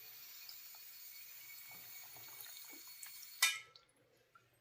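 Liquid trickling and dripping with faint ticks as brake cleaner and loosened grease run off metal grates. About three and a half seconds in comes one short loud clink, and then the sound cuts out.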